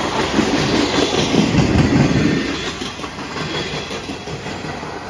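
Freight train cars, tank cars and then enclosed autorack cars, rolling past at speed on steel wheels. The noise swells to its loudest about two seconds in, then eases off a little.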